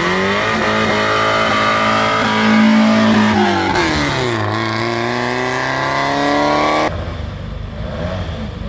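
Porsche 944's four-cylinder engine revving hard as the car launches from the start line, rising in pitch, dipping at a gear change about four seconds in, then climbing again as it pulls away. The sound cuts off suddenly about seven seconds in, leaving a quieter low engine rumble.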